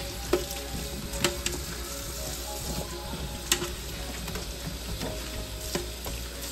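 Kitchen tap running into a stainless steel sink as live crabs are scrubbed with a dish sponge under the stream, with a few sharp clicks from handling the crabs.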